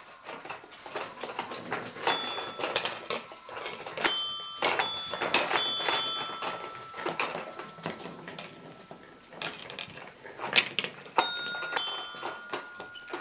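Puppies pawing and nosing a child's toy piano, sounding single notes about half a dozen times; each note rings on for a second or more, over a busy patter of knocks and scuffles.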